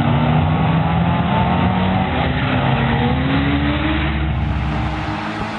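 Car engines at full throttle down a drag strip, the engine note dipping at a gear change and then climbing again as the revs build.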